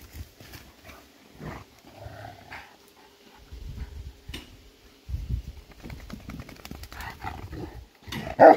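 Dogs at play, with low growls, then loud barking breaks out near the end, about two barks a second.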